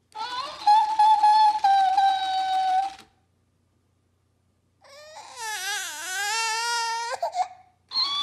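A talking hamster plush toy plays back a toddler's whine in a sped-up, high-pitched voice. After a silent pause, the toddler cries with a wobbling, wavering pitch.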